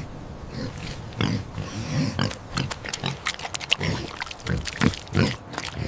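Pig grunting: a run of short, irregular grunts and oinks.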